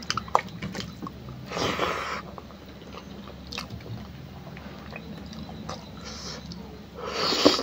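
Close-up eating sounds from someone eating meat and rice by hand: wet chewing and mouth smacks with small clicks. Two louder short slurping noises come about one and a half seconds in and again near the end.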